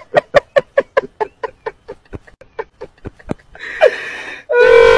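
A man laughing in a fast, rhythmic run of short ha-ha bursts, about six a second, that fades away. A short steady held tone comes in near the end.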